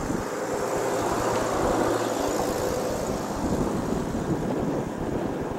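Distant drone of two EMD F40PH diesel locomotives (two-stroke V16 engines) as the train approaches slowly, with a faint pitched hum about one to two seconds in. Wind buffets the microphone throughout.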